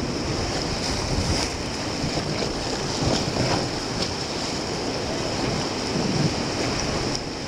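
Rushing whitewater of a high-water river rapid around a raft, a steady roar of churning water. Wind buffets the microphone.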